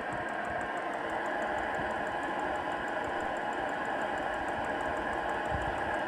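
Chinese diesel air heater running: a steady whir of its fan and motor with fast, regular ticking.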